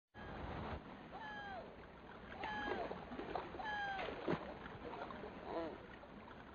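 Gulls calling over the steady rush of river rapids: three long calls that fall in pitch in the first four seconds, then shorter arched calls near the end. A single sharp knock about four seconds in.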